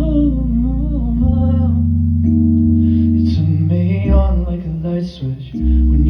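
Live pop music: a heavy, sustained bass line that changes note about once a second. Over it, a wordless gliding vocal is sung near the start. The bass drops out briefly about four seconds in, then returns.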